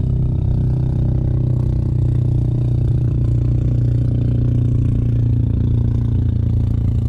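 An engine running steadily at idle: a constant low hum that holds the same pitch and level throughout.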